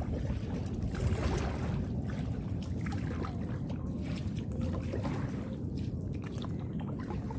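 Water splashing and trickling around a small rowed boat, over a steady low rumble.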